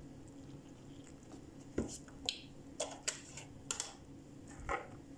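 Scattered light clicks and taps from a metal spoon against a plastic mixing bowl of flour as milk is poured in, about eight in a few seconds from about two seconds in, over a faint steady hum.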